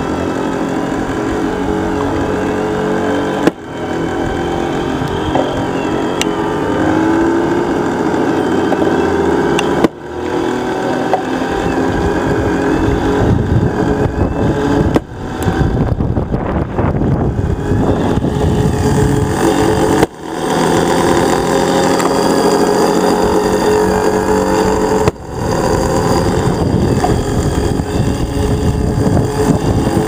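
BP-Pro pitching machine's electric throwing-wheel motor running steadily. About every five seconds a ball is fed through: a sharp click and a sudden dip in the motor's sound, which picks back up within about a second.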